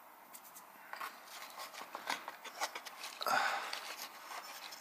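Dried moss crackling and rustling as fingers pick at it inside a cardboard box, a run of faint short crackles with a louder scraping rustle a little past three seconds in.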